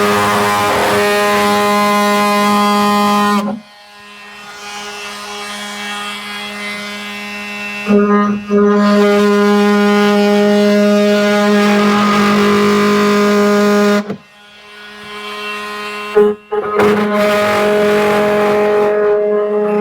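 Power tool cutting through a truck's plastic bed liner with a loud, steady, buzzing hum, in three long cuts with two quieter pauses between them.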